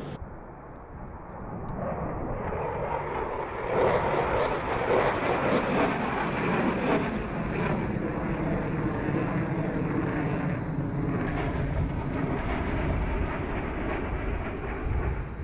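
Eurofighter Typhoon's twin EJ200 jet engines running: the roar builds over the first few seconds, grows louder about four seconds in, then holds steady.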